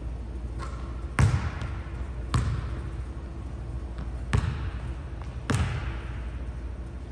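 A basketball bouncing on a hardwood gym floor: four loud, single bounces about a second or two apart, each echoing in the large hall.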